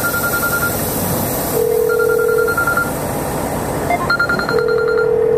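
A phone ringing: an electronic ringtone repeating about every three seconds, each cycle a steady low note and a higher trilling note, over the steady noise of the truck running.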